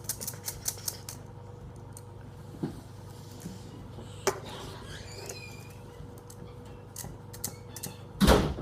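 Fidget toys being handled: a quick run of small clicks in the first second, then scattered single clicks, and a louder knock near the end.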